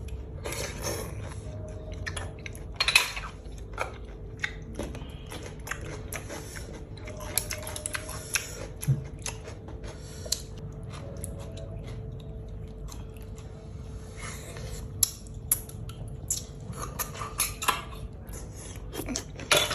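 Someone eating boiled snails: irregular sharp clicks and clinks against a dish, with chewing.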